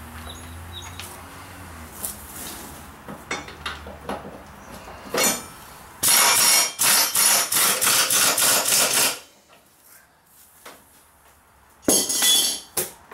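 Air impact wrench hammering hard for about three seconds, then a short second burst near the end, running down the mower's blade spindle nuts. Before it, light metal clinks of tools and washers.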